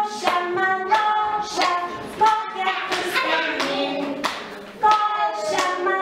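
Women singing a children's song in Lithuanian, with hand claps on the beat.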